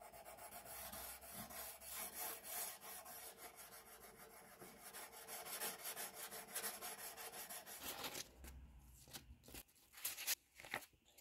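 Fine 1000-grit sandpaper on a flat metal bar rubbed quickly back and forth along the steel blade of a Mauser K98 bayonet, the finishing stage of rust removal. The sanding stops about eight seconds in, and a few sharp knocks and taps follow.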